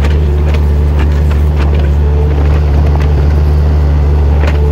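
Mini excavator's diesel engine running steadily under load, with a few short knocks and scrapes as the bucket moves red clay.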